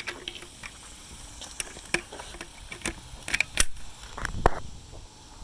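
Plastic clicks, knocks and rattles of a Dyson cordless vacuum's accessories being handled and snapped into place, the vacuum not running. The sharpest knocks come in a cluster about three and a half seconds in and again near four and a half seconds.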